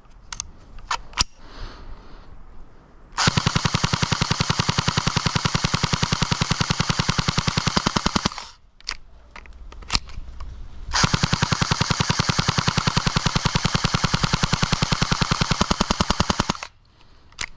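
Airsoft rifle firing on full auto in two long bursts of about five seconds each, a rapid even string of shots. A few sharp clicks come before the first burst.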